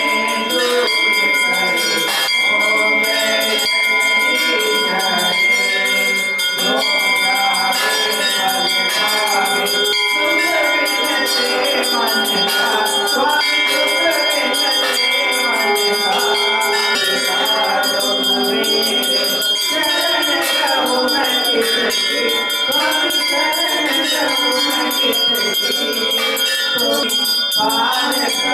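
Temple bells ringing continuously in rapid strokes during an aarti lamp offering, with voices chanting underneath.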